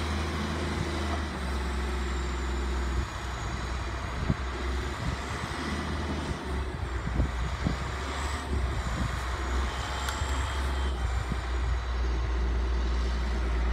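Diesel engine of a wheel loader running with a steady low hum. From about three seconds in, the sound turns uneven with short knocks and rumbles, then settles back to a steady hum near the end.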